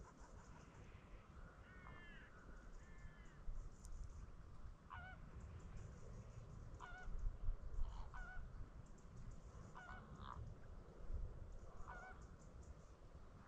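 Large wading birds giving short honking calls, a few bent calls and then one every second or two, over a low rumble.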